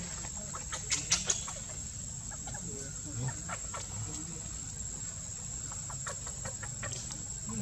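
Dry leaf litter crackling and rustling as monkeys move and handle things on the forest floor, loudest about a second in, with a few short clucking calls and a steady high whine behind.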